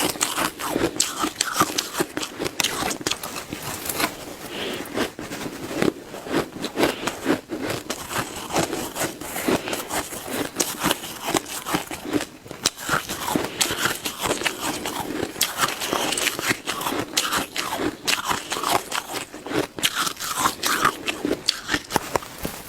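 Shaved ice being bitten and chewed in quick, big bites: a dense run of crunching and crackling close to the microphone.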